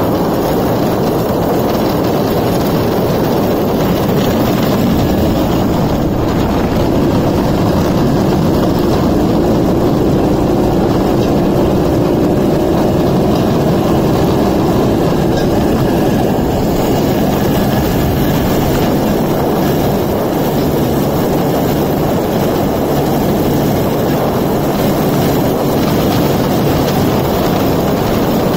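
Suzuki 125cc two-stroke engine of a homemade rail cart running steadily under way, mixed with the steel train wheels rolling along the rails.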